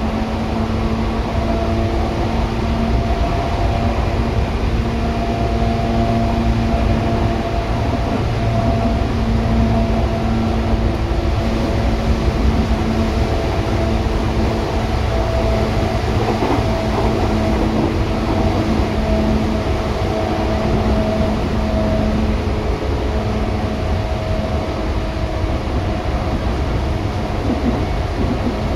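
Inside a moving 8500-series electric train car with Hitachi traction motors: steady running noise from wheels, rails and motors, with a low hum and a higher motor tone that fade in and out.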